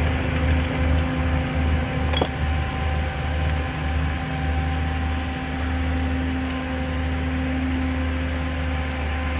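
Skid steer's diesel engine running steadily, a low rumble with a steady hum over it. One sharp click about two seconds in.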